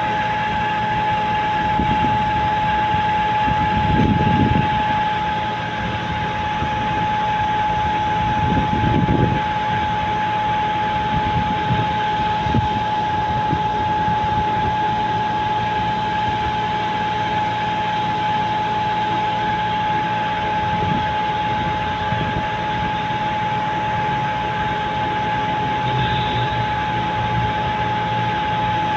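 Transit mixer truck running on the move: steady engine and road noise with a constant high-pitched whine throughout.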